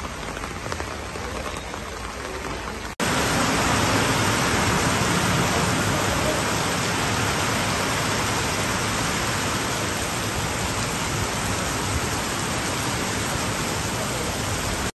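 Heavy rain pouring down. About three seconds in, a cut brings a louder, denser downpour that stays steady.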